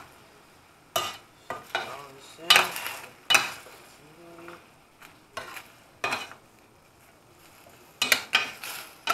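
Large metal spoon scraping and clanking against a stainless steel pan as cabbage and broccoli are stirred, in irregular strokes that are loudest around three seconds in and again near the end. A faint sizzle of the vegetables frying runs beneath.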